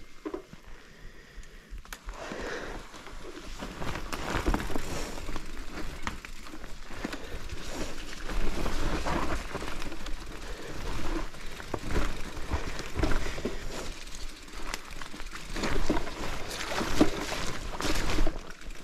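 Mountain bike riding over a rough, rocky trail: tyre noise with irregular knocks and rattles, growing louder about two seconds in.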